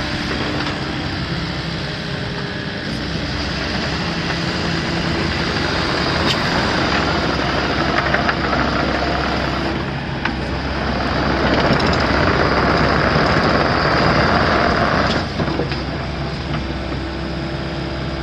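2019 Volvo ECR88D compact excavator's diesel engine running steadily while the machine swings and works its boom hydraulics. A louder rushing hiss builds about eleven seconds in and cuts off suddenly about fifteen seconds in.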